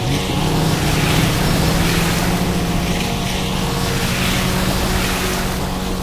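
Jeep Gladiator driving through a shallow creek, its tyres throwing up a loud, continuous rushing splash of water over the engine running.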